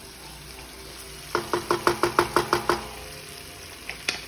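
Garlic sauce simmering in a frying pan as it reduces, a soft steady sizzle. About a second and a half in comes a quick, even run of about a dozen knocks and scrapes of a wooden spoon against the pan, then a single click near the end.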